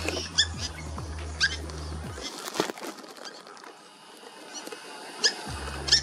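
Purple swamphens giving short, sharp alarm calls at a red-bellied black snake, single calls a second or more apart with a quieter stretch in the middle.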